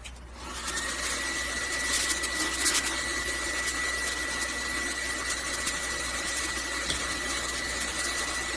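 A gas forge's burners being turned on. A click, then a steady rushing hiss with a thin high whistle joins about a second in, with a few crackles between two and three seconds.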